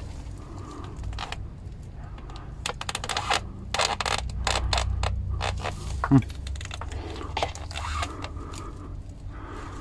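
Light metallic clicks and scrapes as a ring spanner and a bleed hose are fitted onto a brake caliper's bleed screw, with a plastic catch bottle handled alongside, ready for bleeding the brake fluid.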